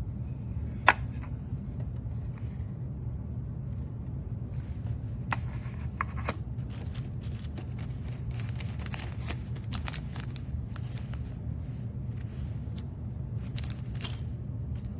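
Scattered clicks and light rattles of small hard objects being handled, with one sharper click about a second in, over a steady low hum.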